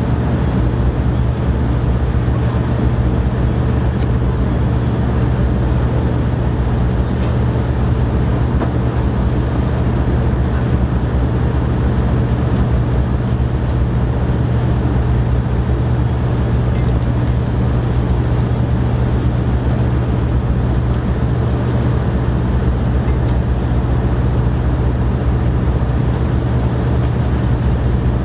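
An engine running steadily, a constant low hum that does not change.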